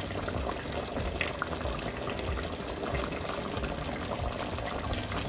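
Pot of chicken curry in coconut milk boiling on the stove: a steady bubbling hiss with small scattered pops.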